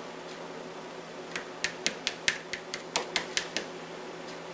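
Kitchen knife chopping hard-boiled eggs on a cutting board: a quick run of about eleven sharp taps of the blade on the board, roughly five a second, starting over a second in and stopping about a second before the end.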